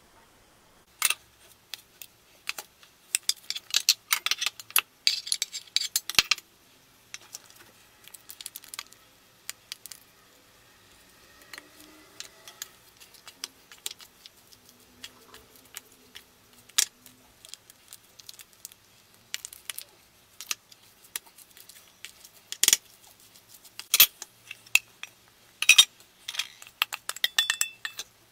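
A cleaver blade and a plastic spatula scraping and knocking against a stainless steel mixing bowl as diced potato, egg and shrimp salad is tossed. Irregular clinks and scrapes come in bursts, with a quieter stretch in the middle.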